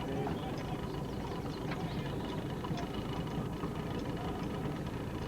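Outboard motor running steadily, a dense low drone with faint steady whining tones above it.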